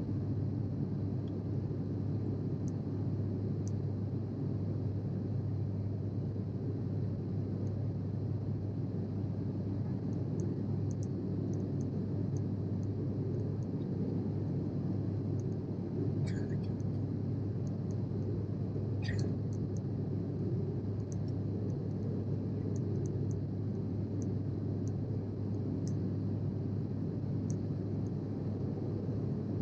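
Steady in-flight cabin noise of a Sukhoi Superjet 100: the drone of its SaM146 turbofans and rushing air, with a strong low hum. Two brief clicks come about halfway and about two-thirds in.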